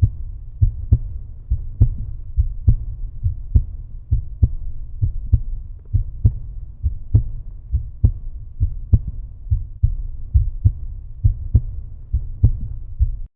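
Outro music: a steady, bass-heavy beat of about two low thumps a second, cutting off suddenly at the end.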